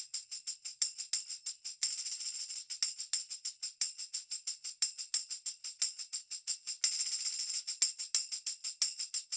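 A solo tambourine plays a steady rhythm of jingle hits, about four a second, with a short shaken roll about two seconds in and again near seven seconds. The same part is heard as recorded through a Neve 88M interface's preamp and then as recorded through another audio interface.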